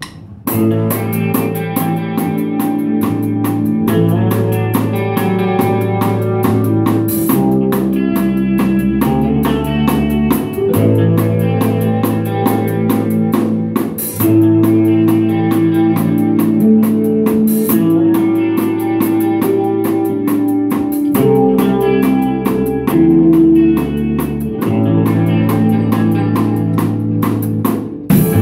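Rock band rehearsing: electric guitar playing sustained chords over a low bass line and drums, with cymbal crashes every few seconds.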